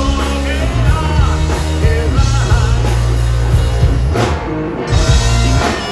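Live rock band with bagpipes playing loud: drum kit and a heavy bass line under a man's singing voice, with the bagpipes coming in near the end.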